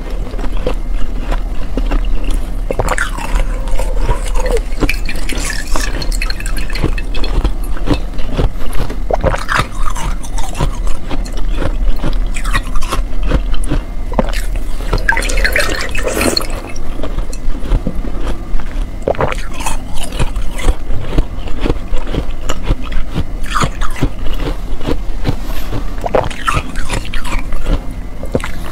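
Close-miked mouth sounds of a person eating slush ice: irregular crunchy bites and wet sucking and slurping on the soft frozen ice.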